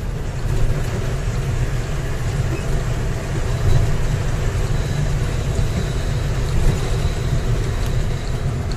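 Steady engine and road rumble heard from inside a moving vehicle's cab, cruising at an even speed.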